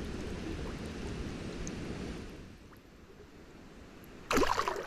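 Rushing water, steady for about two seconds before fading away, then a short, loud burst near the end.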